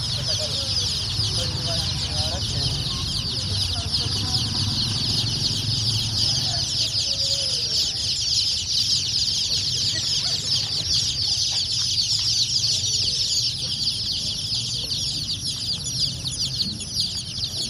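A large crowd of day-old domestic chicks peeping nonstop, with many overlapping short, high, falling cheeps.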